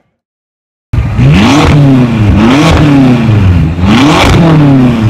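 Engine revved hard three times, each rev climbing quickly and falling back more slowly. It starts suddenly about a second in and is very loud.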